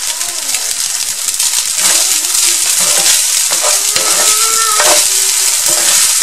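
Fried rice with chicken and diced carrot sizzling steadily in a hot pan as it is stirred and turned with a wooden spatula and a second spatula.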